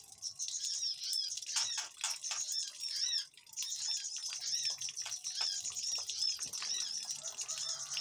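Small aviary birds calling in a panicked, noisy chorus: a dense stream of short, high chirps overlapping rapidly, with a brief lull partway through.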